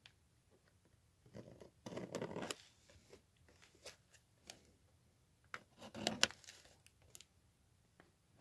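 Handling noises of a small cardboard box: rustling and scraping in two short spells, with scattered sharp clicks, as the box is turned in the hands and small scissors are worked at its tape seal.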